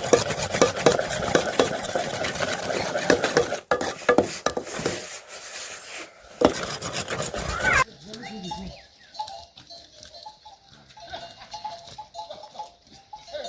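Goats bleating amid dense clattering and rustling. About eight seconds in, the sound cuts abruptly to a quieter stretch with scattered short calls.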